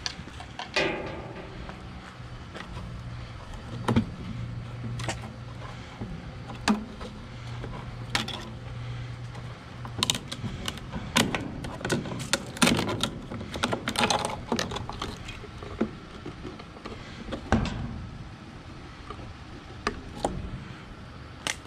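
Diagonal wire cutters snipping wires inside a karaoke machine's wooden speaker cabinet, with the knocks and rattles of the cabinet and circuit board being handled: irregular sharp clicks and snaps, thickest in the middle stretch. A low steady hum runs under the first half.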